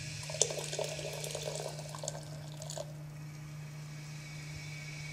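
Water poured from a bamboo tea-ceremony ladle, splashing and trickling for about two and a half seconds, with a small sharp knock just after it begins; then it stops and only a steady low hum remains.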